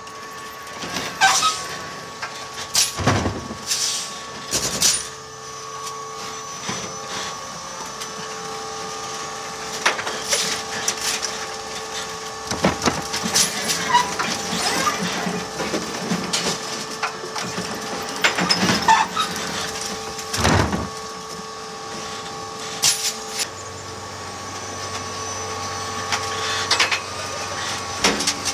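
Heil Revamp electric automated side-loader's arm dumping a recycling cart and setting it back down: a steady whine from the electric drive with repeated knocks and bangs of the cart and gripper arm. A deeper hum joins near the end as the arm retracts.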